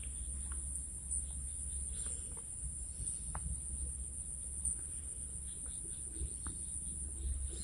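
Steady high-pitched insect chorus, with a low rumble on the microphone and a few faint small clicks.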